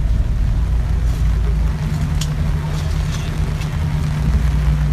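Steady rain on a wet parking lot, over an unbroken low rumble of idling vehicle engines.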